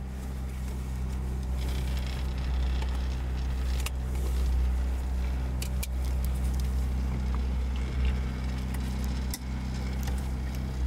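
Toyota 4A-GE 1.6-litre twin-cam four-cylinder engine idling steadily, with a few light clicks over it.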